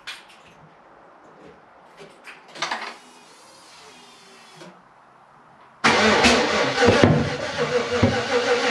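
Rebuilt 5.3-litre V8 being started on its first start-up after the rebuild: after a few faint clicks and a short hiss, the starter and engine come in suddenly and loud about six seconds in and keep going, pulsing unevenly.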